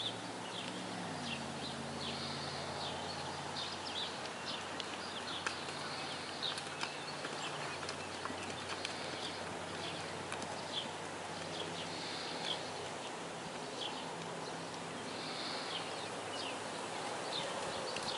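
Hoofbeats of a Quarter Horse gelding moving over soft arena sand under a rider, with small birds chirping in short high notes and a faint low steady hum.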